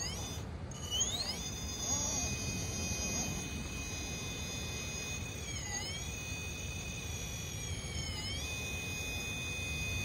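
RC rock crawler's electric motor and drivetrain whining at a high pitch as it creeps up rock. The whine climbs in pitch as the throttle opens about a second in, then dips and comes back twice, around the middle and near the end, over a low rumble.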